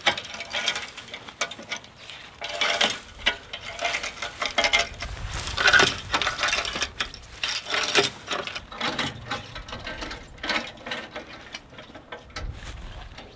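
Steel chain clinking and rattling in irregular bursts as it is worked through a hand-operated chain fence stretcher.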